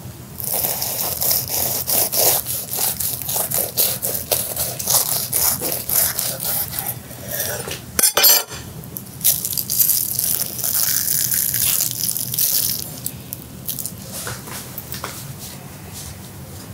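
A knife sawing through the crisp, baked puff-pastry crust of a Wellington: a dense run of crackles and crunches, with one sharper crack about eight seconds in, fading out after about thirteen seconds.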